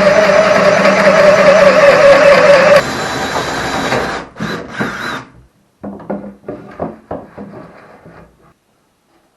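Electric drill running under load, its pitch sagging slowly, then stopping about three seconds in. Two short bursts of the drill follow, then scattered clicks and knocks of handling.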